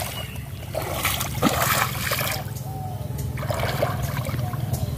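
Water trickling and splashing as a fishing net's wet rope is hauled in by hand from a pond, in uneven bursts.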